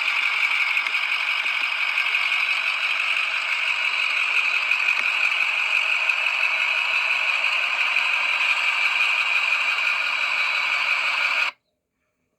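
Steady mechanical engine noise, most likely the truck's VT365 diesel, running without change until it cuts off suddenly near the end.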